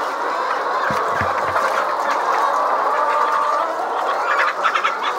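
A large flock of caged laying hens clucking and calling together in a steady, dense chatter. A quick run of sharp clicks comes near the end.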